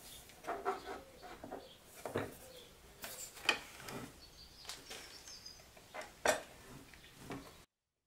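Scattered light knocks and clatter of wood pieces and tools being handled at a workbench, with no saw running. The sound cuts to dead silence near the end.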